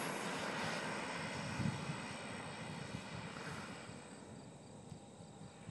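Model jet's gas turbine running at low power, a rush with a thin high whine, fading steadily as the jet rolls away along the runway after landing.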